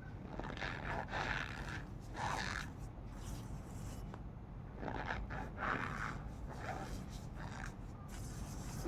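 Cornstarch squeaking and crunching as it is pressed and squeezed, in a series of short squeaks with a brief lull around three seconds in.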